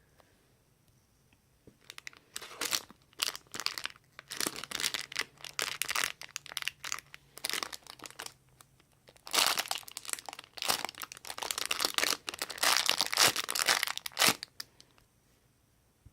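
Plastic wrapping crinkling and crumpling as it is handled. It comes in two long stretches, from about two seconds in to about eight seconds, and again from about nine seconds until shortly before the end.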